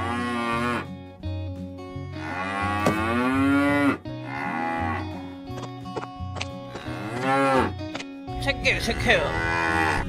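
Cattle mooing: several long calls, each rising and falling in pitch, over background music with a steady bass line.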